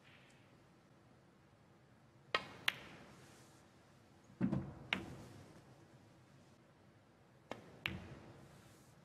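Snooker balls clicking during play: three pairs of sharp clicks a few seconds apart, cue tip striking the cue ball and the cue ball hitting an object ball, the middle pair with a duller knock.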